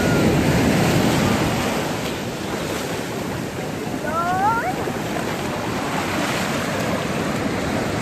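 Sea waves washing in over a sandy shore, a steady rush of surf, a little louder in the first second. About four seconds in, a brief rising child's voice.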